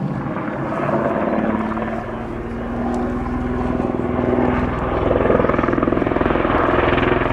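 Eurocopter AS532UL Cougar twin-turbine helicopter in display flight: rapid rotor beat over a steady turbine whine, growing louder and strongest from about five seconds in.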